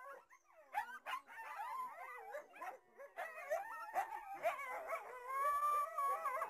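Canine howling and yipping: several pitched voices rising, falling and wavering over one another, starting after a brief pause at the very beginning.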